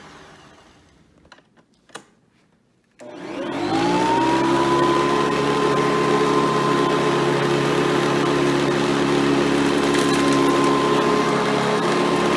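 Hoover Elite 350 upright vacuum with a swapped-in 7-amp motor and 7-blade fan winding down to a stop, a few clicks, then switched back on about three seconds in, its whine rising as the motor spins up and then running steady.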